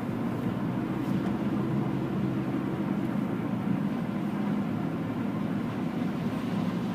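Steady road and engine noise heard inside a car cruising at highway speed, a low even rumble with no sudden events.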